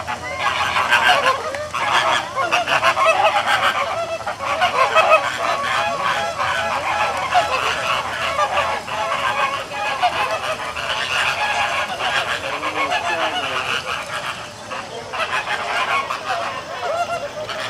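A flock of flamingos honking continuously, many goose-like calls overlapping into a dense chorus with brief lulls.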